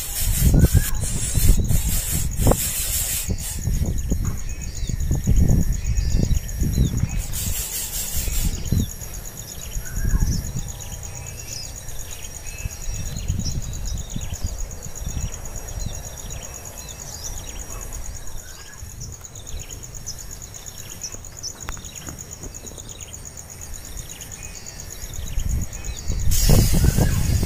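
Birds giving repeated short falling chirps over a low rumble, with a steady high-pitched whine underneath. Louder bursts of rustling noise come at the start, about eight seconds in, and near the end.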